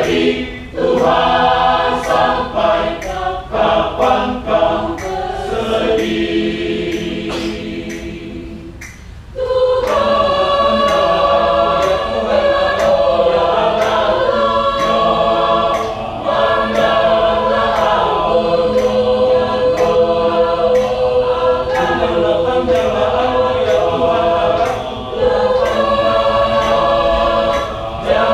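Choir singing a Christian song in rehearsal, with a steady beat of faint clicks underneath. A held chord fades away about six to nine seconds in, then the full choir comes back in louder.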